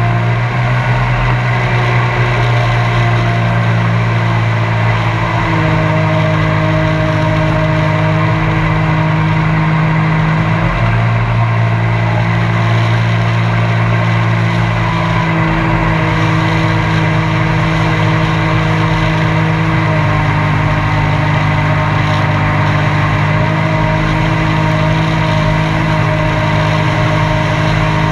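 Mini jet boat's engine running steadily while the boat is under way, its pitch stepping slightly up and down a few times as the throttle shifts.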